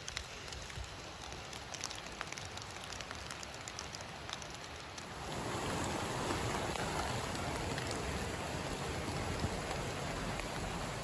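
Rain falling on vegetation, with scattered sharp drop taps. About five seconds in it changes abruptly to a louder, denser, steady water noise.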